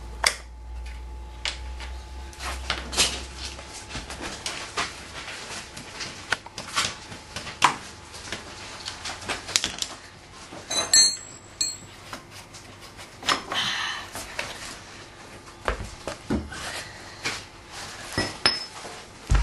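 Irregular metallic clinks and knocks of hand tools and parts as a dirt bike's front axle is worked loose and the front wheel is pulled from the fork, with a low hum that stops about four seconds in.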